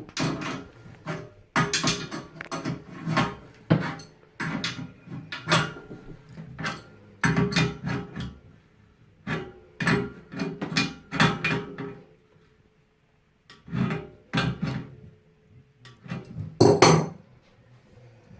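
Irregular metallic clinks, taps and knocks of tools and pipe fittings being handled, some ringing briefly, with a short pause about two-thirds of the way through and a louder knock near the end.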